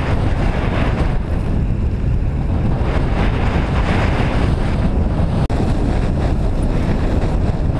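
Steady, loud wind noise buffeting the microphone of a camera riding on a recumbent bicycle at racing speed. It cuts out for an instant about five and a half seconds in.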